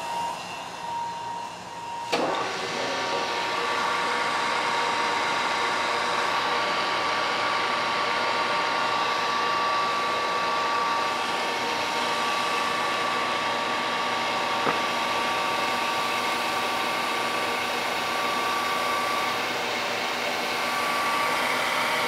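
Brown & Sharpe surface grinder running, its wheel grinding the magnetic chuck as the table is traversed by hand. A steady whine over a grinding hiss, stepping up louder about two seconds in.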